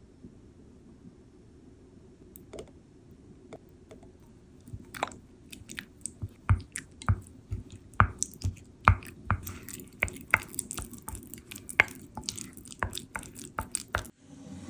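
Food being worked by hand with kitchen utensils: a steady low hum under a run of irregular sharp clicks and soft knocks, sparse at first and growing busy from about five seconds in.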